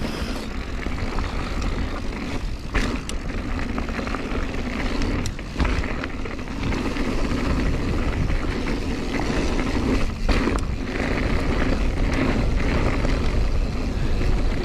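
Mountain bike riding down a dirt trail: a steady rumble of wind and tyre noise, with a few sharp knocks and rattles from the bike over rough ground.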